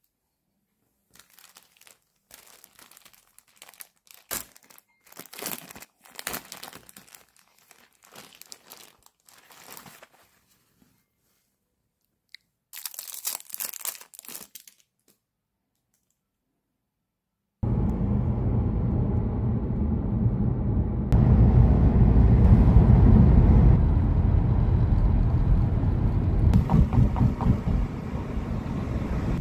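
Thin clear plastic packaging crinkling and rustling in short bursts as a pen is handled in its sleeve. After a pause it cuts abruptly to the steady, much louder low rumble of a car driving: road and wind noise.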